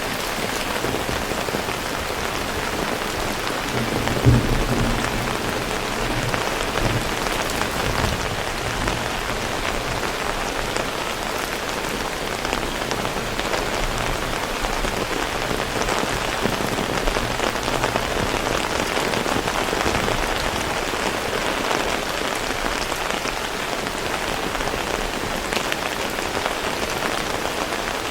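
Heavy rain falling steadily, with a brief low thump about four seconds in.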